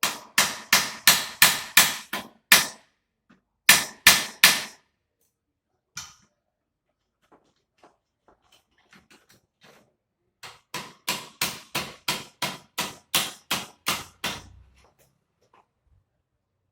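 Hammer blows on a steel bar stuck through a motorcycle muffler, knocking it loose. Quick runs of sharp metallic strikes, about three a second, with a pause and some light taps between the runs.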